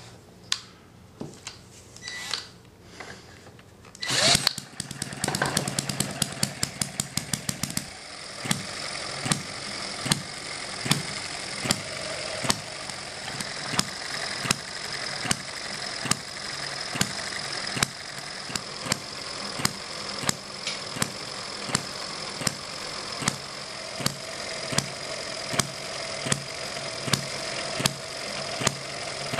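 Small vertical hit-and-miss model engine (Eachine ETX / M91), fitted with lighter governor springs. After a few light clicks it starts up about four seconds in and fires rapidly for a few seconds. It then settles into hit-and-miss running: a sharp firing pop roughly once a second, with the flywheels coasting between firings while the exhaust valve is held open.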